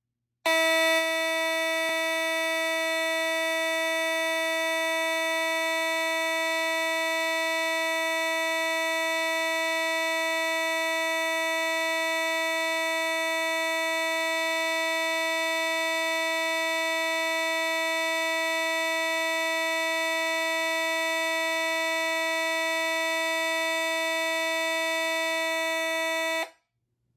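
Simplex 2903-9002 fire alarm horn sounding one loud, steady, unbroken tone, which cuts off suddenly near the end.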